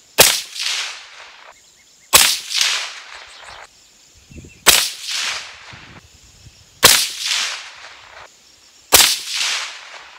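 Five rifle shots from a PSA 7.5-inch AR pistol in .300 Blackout firing supersonic Wolf 145 gr FMJ, about two seconds apart. Each sharp report is followed by a softer echo about half a second later.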